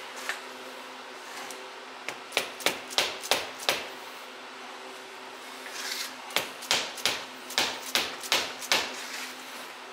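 Rubber mallet striking the ring gear of a GM 8.2 10-bolt differential carrier to knock it off the carrier once its bolts are out. The knocks come in two runs of quick strikes, about three a second, the first starting about two seconds in and the second about six seconds in.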